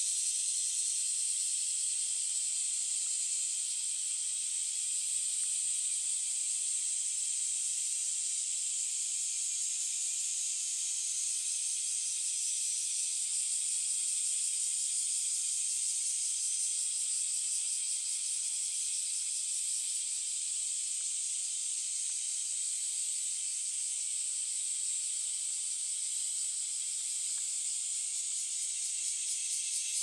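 Insects droning steadily in the undergrowth, a continuous high-pitched, hiss-like buzz.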